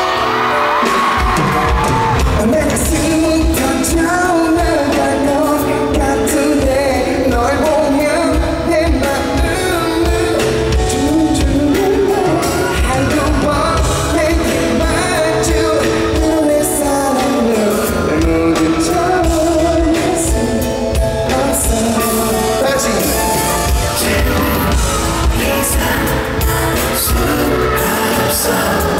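Live pop music in an arena: a sung melody over a band with a steady low beat.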